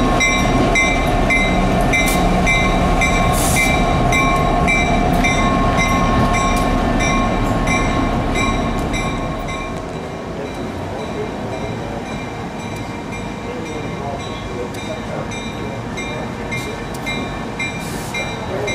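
Diesel-electric locomotive rolling past at close range with a heavy low engine rumble, its bell ringing steadily at about two to three strokes a second. About nine seconds in the rumble drops away, and the bell keeps ringing as the locomotive approaches slowly.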